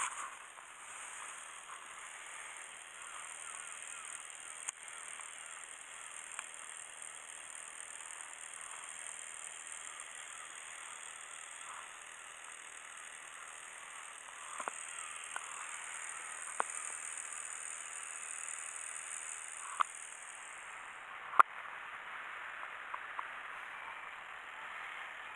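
Steady, faint outdoor hiss by harbour water, with a thin high hiss that stops about 21 seconds in. Several sharp clicks break through, the loudest about 21 seconds in.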